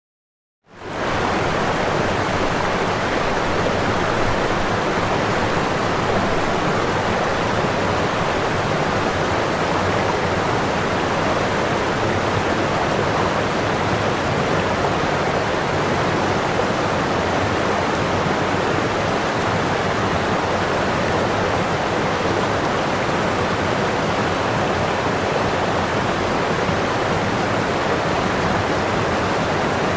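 A steady, even rushing noise that holds at one level throughout, without gusts, beats or distinct events.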